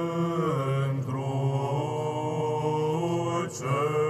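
Byzantine chant sung by a choir of men's voices in Romanian: a slow melismatic melody held over a steady low drone, the ison. The singing breaks briefly about a second in and again near the end.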